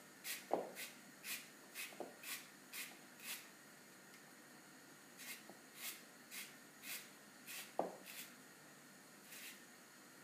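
Hand-held hourglass spiralizer cutting a zucchini into spaghetti strands: short rasping scrapes as the zucchini is twisted against the blade, about two a second, in two runs with a pause in the middle. A couple of sharper knocks come about half a second in and near the eight-second mark.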